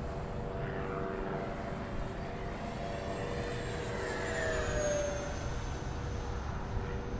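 E-flite F-15 Eagle RC jet's electric ducted fans whining in a low flyby. The whine grows loudest and drops in pitch as it passes, about four to five seconds in.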